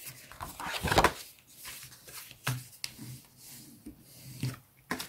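Bone folder rubbed firmly along the fold lines of a cardstock card to sharpen the creases: a series of short scraping strokes, the strongest about a second in.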